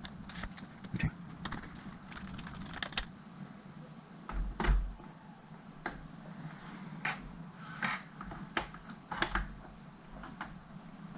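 Irregular plastic clicks and taps as a vintage Dell Latitude CPi laptop's case parts and cover are handled and pressed into place, with one louder knock about halfway through.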